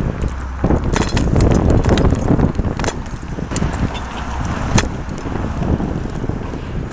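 A bicycle rattling and clicking as it rolls over the pavement, many short sharp rattles over a steady rumble of road noise and street traffic.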